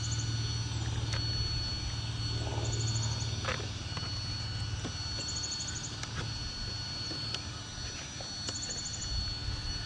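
Wind rumbling on the microphone, rising and falling, under a faint steady high whine. A short high chirping trill repeats about every three seconds.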